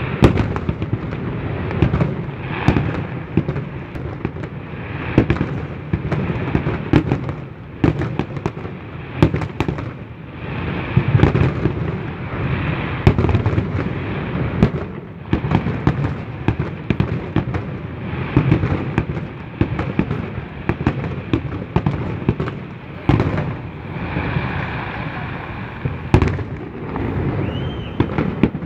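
Fireworks display: a constant run of deep booming bursts and sharp bangs, often several a second, with stretches of crackling between them.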